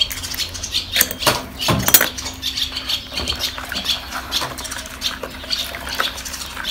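A utensil clinking and scraping against a bowl as the liquid base for a yeast dough is stirred, with a few sharper knocks about one to two seconds in.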